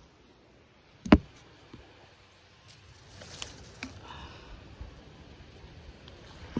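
Handling noises from a tent being set up: a sharp knock about a second in, then soft rustling with a few light clicks, and another sharp knock at the end.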